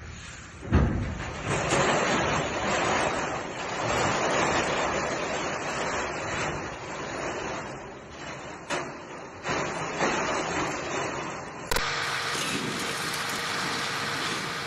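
Wind buffeting a phone microphone outdoors: a steady rush with a thump about a second in. About twelve seconds in it changes abruptly to a steady engine hum.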